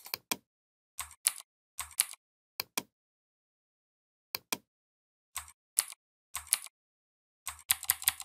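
Computer mouse and keyboard clicks, mostly in quick pairs with pauses between. Near the end comes a fast run of about eight clicks, as a keyboard shortcut is pressed again and again.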